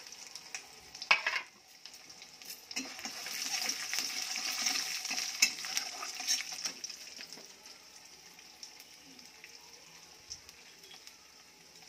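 Peanuts frying in hot oil in a kadai, with a metal spatula stirring and scraping against the pan. The sizzle builds a few seconds in, then dies down toward the end, and there is a sharp knock of the spatula about a second in.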